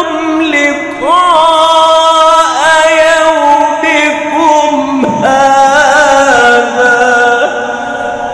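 A man's voice reciting the Quran in the slow, melodic mujawwad style: long held lines ornamented with sliding, wavering pitch, fading away near the end.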